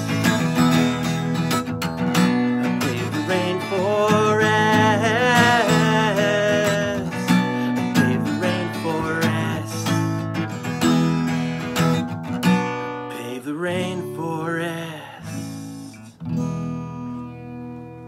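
Strummed acoustic guitar chords, with a man's voice singing along in the first half. The strumming thins out and quietens in the last few seconds as the song ends.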